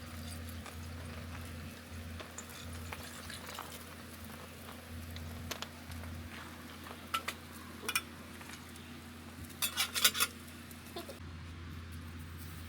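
Food sizzling in a pan as a steady hiss while it is stirred, with scattered clinks of a utensil against the pan and a quick run of clinks about ten seconds in.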